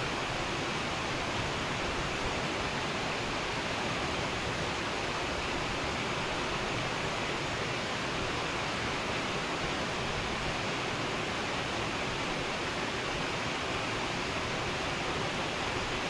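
Waterfall pouring over a rock face into a pool: a steady, unbroken rush of falling water.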